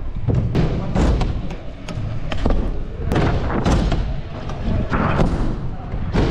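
Stunt scooter wheels rolling over plywood skatepark ramps, with a steady low rumble and repeated sharp knocks and thumps as the scooter hits ramp edges and transitions.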